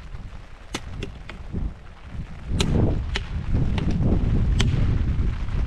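Dry branches on a dead log snapping by hand: about eight sharp cracks spread irregularly. A low wind rumble on the microphone grows louder about halfway through.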